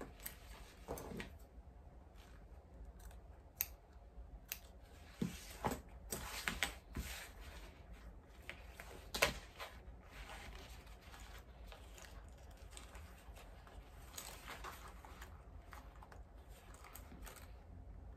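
Scissors snipping into the corners of a bag's fabric seam allowance: a scattered series of quiet short snips, the sharpest about nine seconds in, with soft fabric handling between them.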